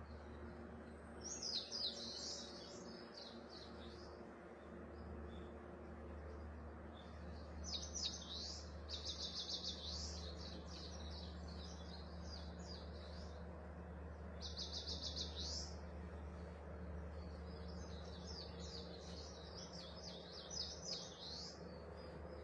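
A bird singing in several separate bouts of rapid, high chirps and trills, over a steady low hum.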